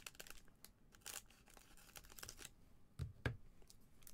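Foil trading-card pack (Panini Crown Royale basketball) crinkling and being torn open by gloved hands: faint scattered crackles, with a sharper tear about three seconds in.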